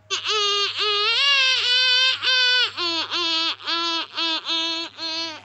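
A young child singing without clear words: a string of short, high held notes, about two or three a second, stepping between two pitches.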